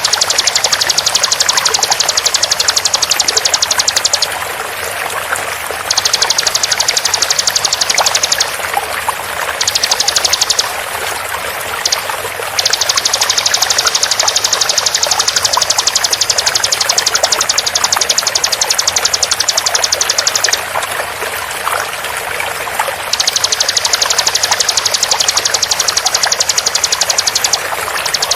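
Bar-winged prinia (ciblek) song: long runs of very fast, densely packed high notes lasting several seconds each, with short breaks between. It plays over a steady sound of running water.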